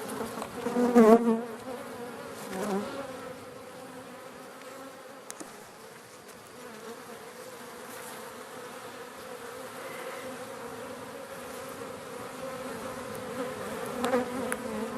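Honey bees buzzing in a steady hum around an opened hive.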